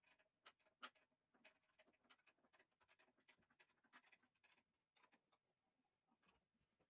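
Faint, irregular clicks and scrapes of gloved hands handling parts beneath the table of a Makita LB1200F band saw; the saw's motor is not running.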